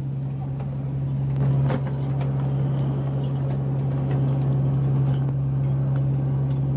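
Fishing boat's engine or generator running with a steady low drone, with scattered clicks and knocks from the deck gear over it.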